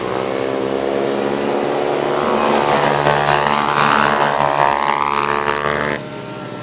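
Engines of two racing quad ATVs revving hard, the pitch and loudness climbing toward the middle. The sound drops off suddenly near the end.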